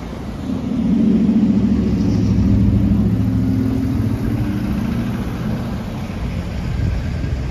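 Road traffic driving past close by: a pickup truck, a van and cars, their engines droning and tyres rumbling. The engine note swells about half a second in and slowly fades after about five seconds.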